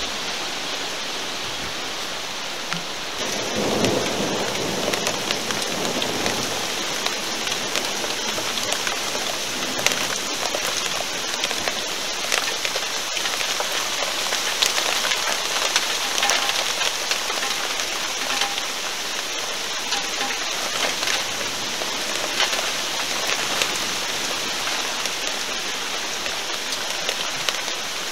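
Thunderstorm: heavy rain and strong wind rushing through trees, an even roar of noise with scattered sharp raindrop ticks throughout. A deeper rumble swells for a couple of seconds about three to four seconds in.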